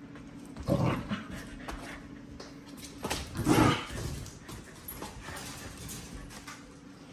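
An adult dog and a puppy vocalising in rough play, with two loud outbursts: a short one about a second in and a longer one around three and a half seconds.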